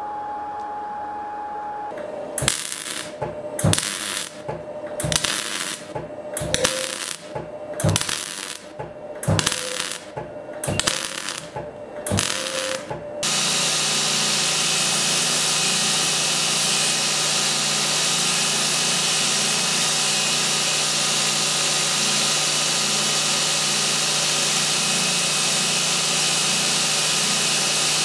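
A run of about nine short rasping strokes, roughly a second apart, starts about two seconds in. About halfway through, a belt grinder comes in suddenly and runs steadily from then on, grinding a small steel scabbard fitting.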